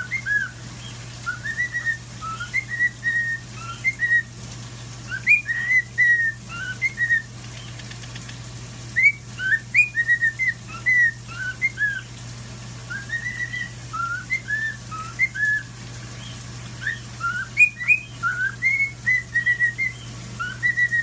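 Cockatiel whistling phrases of short clear notes that jump up and down in pitch, in bursts with short pauses between them, over the steady hiss of a running shower.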